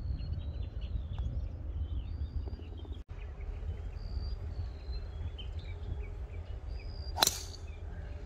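A driver club striking a golf ball off the tee: one sharp crack about seven seconds in. Small birds chirp throughout over a steady low rumble of wind on the microphone.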